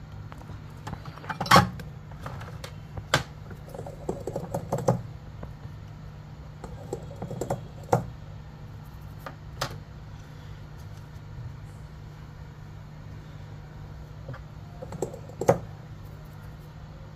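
Scattered sharp clicks and taps of small metal tools, such as tweezers, being handled on a phone-repair workbench, some single and some in quick little clusters, over a steady low hum.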